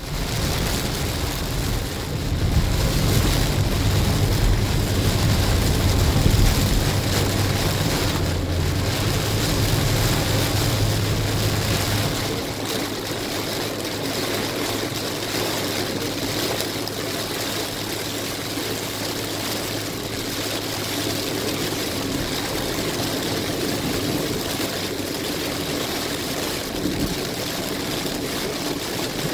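Heavy rain pelting a moving car's roof and windshield, heard from inside the car, over the low rumble of the car and its tyres on the wet road. The low rumble is strongest for about the first twelve seconds, then drops away and leaves mostly the rain.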